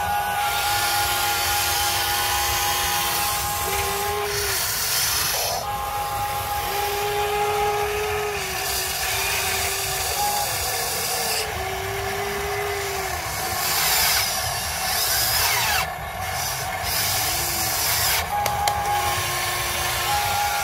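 Huina 580 RC excavator's electric motors whining as the arm and bucket work. The whine is steady but drops out and comes back several times, and a lower tone rises and falls in stretches of a second or two as each motion starts and stops. Under it the bucket scrapes through loose soil.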